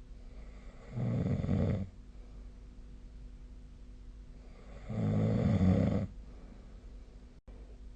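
A sleeping person snoring: two loud snores about four seconds apart, each lasting about a second, with a faint steady hum between them.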